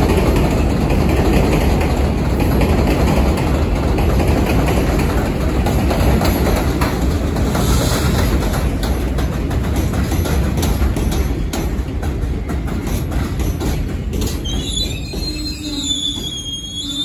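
New York City subway train running past on elevated track: a steady heavy rumble with wheels clattering over the rails, easing off after about 14 seconds. Near the end come wavering high-pitched wheel squeals.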